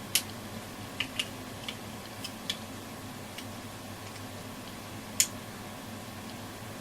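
Irregular small clicks and taps, about eight in all with the loudest about five seconds in, over a low steady hum from hands and tools working on a transistor radio chassis.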